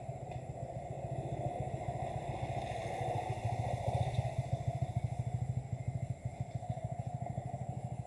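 Motorcycle engine idling with a fast, even pulsing beat, rising a little in level about halfway through.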